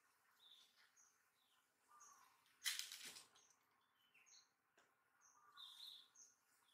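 Faint outdoor ambience with small birds chirping now and then, short high chirps and a few sliding calls. A short loud burst of noise, the loudest thing here, comes a little under three seconds in.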